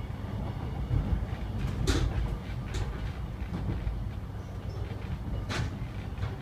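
Alstom X'Trapolis electric multiple unit heard from inside the carriage while running at speed: a steady low rumble, broken by a few sharp clacks, the loudest about two seconds in and again near the end.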